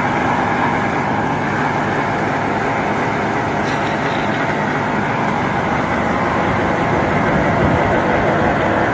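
Fifth-generation Dodge Ram pickup doing a burnout: engine held at high revs while its 35x13.50 rear tyres on 24-inch wheels spin on the pavement, a loud, steady, unbroken noise.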